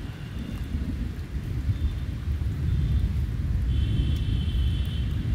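Low, uneven rumble during a rainstorm, growing louder over the first few seconds.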